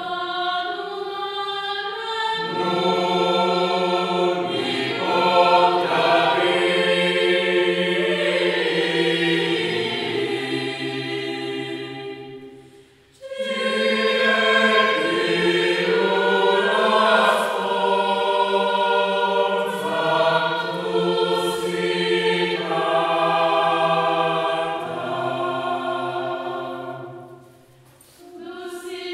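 Choir singing a slow devotional hymn to the Holy Cross in long sustained phrases, breaking off briefly about halfway and again near the end.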